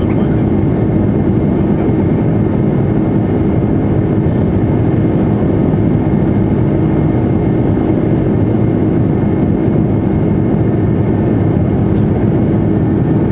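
Steady drone of an Airbus A330-300's jet engines and rushing air, heard inside the passenger cabin during the climb after takeoff, with a faint steady hum running through it.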